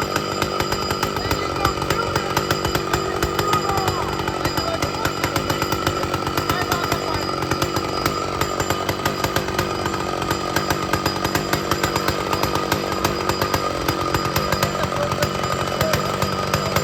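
Old McCulloch two-stroke chainsaw running steadily with a rapid, even firing beat.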